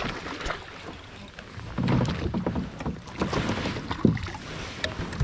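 Water splashing and sloshing around a plastic kayak as a hooked bass is reeled in alongside, with uneven knocks and surges, a few sharp clicks, and wind buffeting the microphone.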